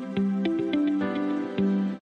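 Gentle background music with plucked notes over held tones, cutting off at the end.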